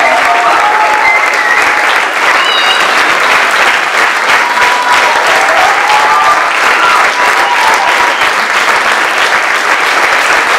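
A hall audience applauding, with loud, dense, steady clapping.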